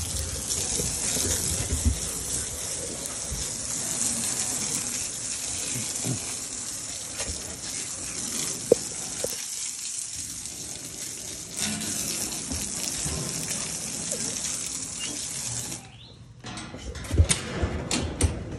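Hose nozzle spraying water in a steady hiss onto a wooden kennel deck floor, washing it down. The spray cuts off about 16 seconds in, and a few light knocks follow.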